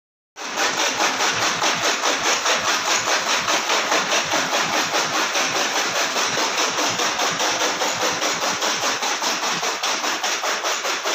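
Chaff cutter chopping green fodder stalks as they are fed in, a loud, rapid, even chopping rhythm of about five strokes a second that starts abruptly about half a second in.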